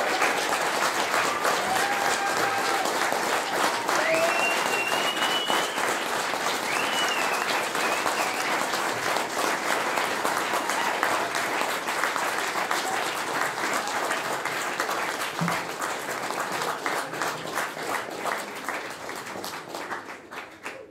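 Audience applauding, with a couple of high calls from the crowd about four and seven seconds in; the clapping thins out and fades near the end.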